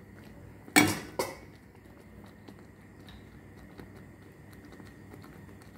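Two sharp metallic clanks of a cooking utensil striking a metal pan about a second in, the first louder, each ringing briefly, then the faint crackle of chicken simmering in thickened sauce.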